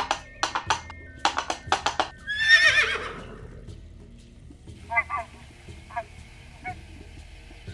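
Horse whinnying once, a loud quavering call that falls in pitch, about two and a half seconds in. It comes after a run of about eight sharp, short sounds, and a few faint short calls follow it.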